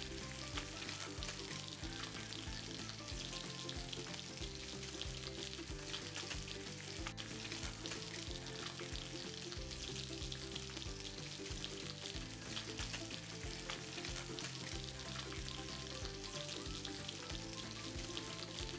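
Sea bass fillets frying in shallow hot oil in a non-stick pan: a steady crackling sizzle, over soft background music.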